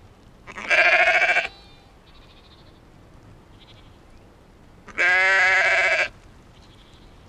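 A ewe bleating twice: two loud, quavering calls, each about a second long, the first just after the start and the second about five seconds in.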